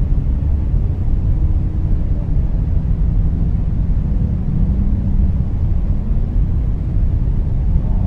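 Whale calls over a steady low underwater rumble: a faint drawn-out moan about one to two seconds in, and a longer, lower one from about four to six seconds in.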